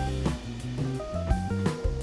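Instrumental background music with held melodic notes over a drum beat.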